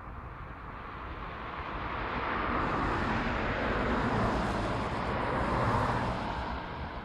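Two cars passing close by on the road, one after the other: tyre and engine noise swelling, peaking twice and fading away near the end.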